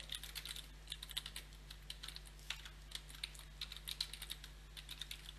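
Computer keyboard being typed on: a quick, irregular run of soft key clicks as a short sentence is typed.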